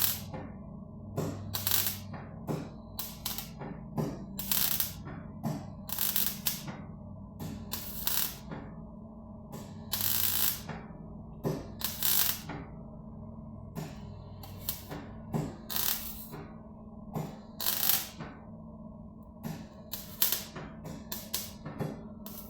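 Welding on car body panels: short bursts of arc crackle, one after another at uneven intervals, over steady background music.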